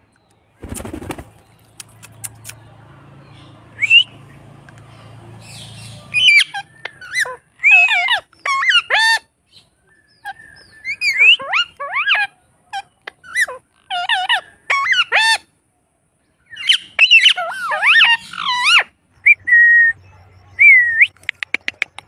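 Indian ringneck parakeets calling and chattering: bursts of quick whistled notes that sweep up and down in pitch, coming in runs with short gaps.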